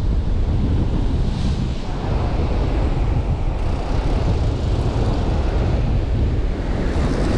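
Wind buffeting the microphone over ocean surf breaking and washing against a rocky shore ledge: a steady rushing noise, heaviest in the low rumble.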